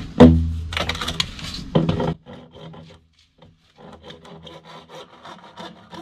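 A sharp knock with a ringing tone, then rapid rasping strokes of a hand tool working, loud at first and quieter for the last few seconds.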